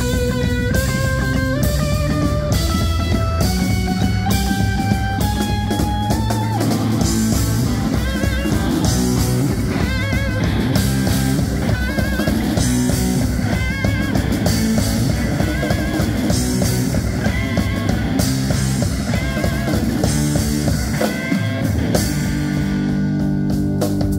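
Live psychedelic rock band playing: a lead electric guitar over a drum kit and organ. The guitar climbs in a stepwise run of notes over the first several seconds, then plays wavering, bent held notes.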